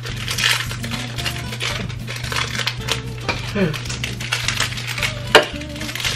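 Background music with a steady bass line under close eating noises: napkins rustling and lips sucking on ice popsicles, with one sharp click about five seconds in.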